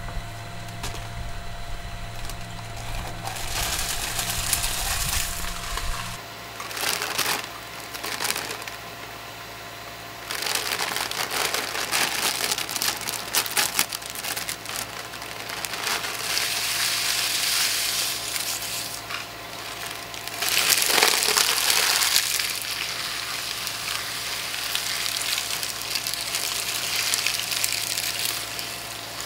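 Twin-shaft shredder's steel blades crunching dry snacks and crinkling a plastic snack bag, over the steady hum of its motor. The crunching comes in several loud stretches with short lulls between.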